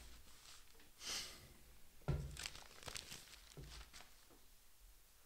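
Newspaper rustling and crinkling as it is gathered up and folded, with a dull thump about two seconds in, then a few light clicks and a softer thump.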